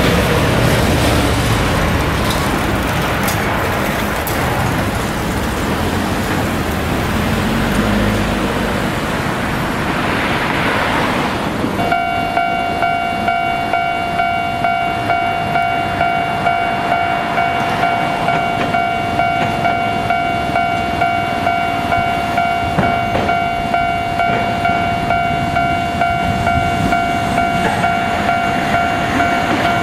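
Hankai Tramway Mo501-type tram No. 505 and road traffic running along the street. About twelve seconds in, a ringing warning signal starts: a steady tone pulsing about twice a second, which keeps going as the tram draws near.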